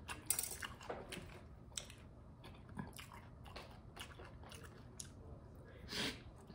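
Close-miked eating sounds: chewing, lip smacks and small wet clicks of a mouthful of food, the loudest just after the start, with a short louder swell near the end.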